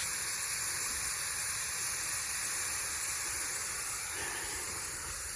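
Steady hiss of steam as water boils off, with a light sizzle.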